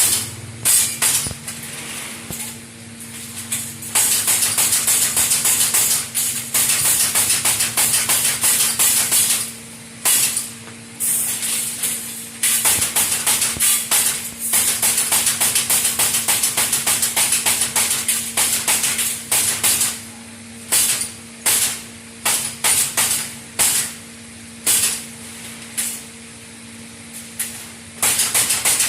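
Machinery working wire for cages: fast runs of sharp crackling clicks lasting several seconds at a time, with short breaks between them, over a steady electrical hum.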